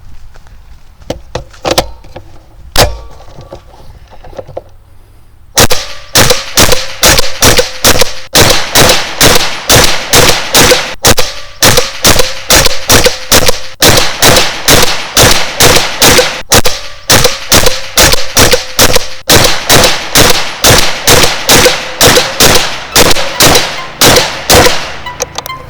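Suppressed PSA AKV 9mm carbine firing rapidly at steel targets: a few scattered shots, then from about five seconds in a long fast string of shots, about two to three a second, each with a ringing clang.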